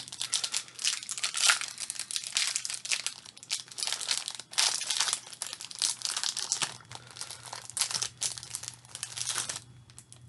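Plastic wrapper of a chocolate-coated wafer bar crinkling and tearing as it is worked open by hand, in a dense run of crackles that stops near the end.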